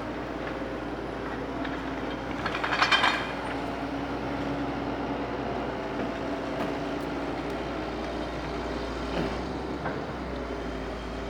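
Large engine running steadily, with a brief rapid rattle about two and a half seconds in.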